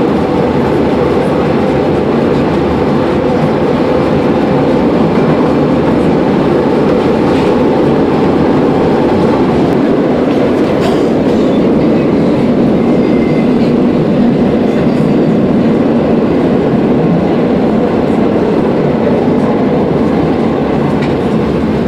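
Lisbon Metro ML90 train running at speed through a tunnel, heard from inside the car: a loud, steady rumble of wheels on rails and traction motors, with a few faint clicks.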